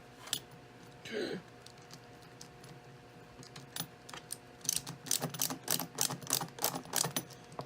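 Small hard parts of an RC truck clicking and clattering as they are handled, a few isolated clicks at first, then a quick irregular run of clicks through the second half.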